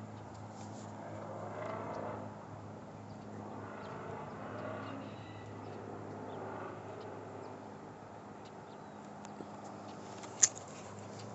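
Steady low hum with some wavering noise over it, and a single sharp click about ten seconds in, the loudest sound.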